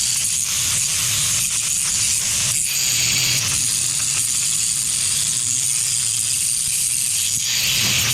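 Angle grinder grinding weld spatter off welded steel feet: a steady, rasping hiss with small dips as the disc's contact with the metal changes.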